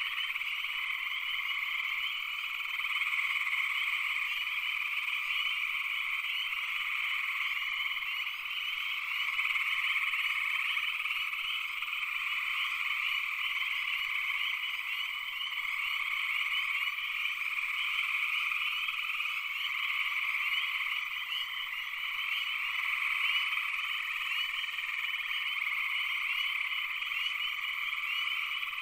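A dense chorus of many frogs calling at once: a steady wall of overlapping calls that never pauses.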